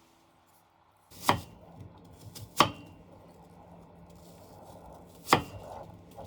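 Kitchen knife chopping on a cutting board: three sharp knocks, the second and third several seconds apart.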